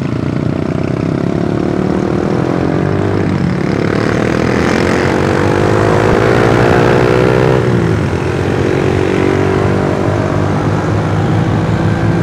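A Honda Astrea Grand's small four-stroke single-cylinder engine pulls away from a standstill, its revs rising, with a gear change about three seconds in. The revs rise again and drop at another shift after about eight seconds, then it runs steadily at cruising speed, with wind rush on the microphone.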